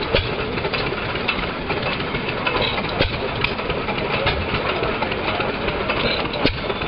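Hercules 7 HP screen-cooled single-cylinder hit-and-miss engine running under load, driving a grist mill. A steady mechanical clatter, with sharp knocks at irregular intervals a second or more apart.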